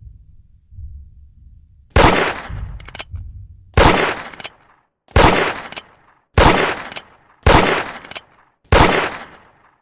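Colt Single Action Army revolver firing six shots, about a second or more apart, starting about two seconds in, each with a short echoing tail and a few short clicks between shots.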